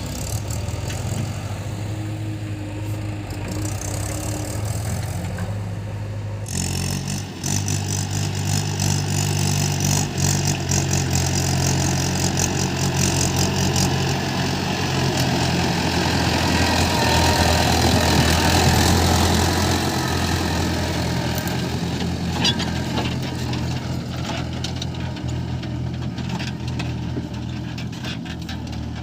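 Heavy diesel engine running steadily. About six seconds in its note steps up and it works harder, growing louder around two-thirds of the way through, then easing back.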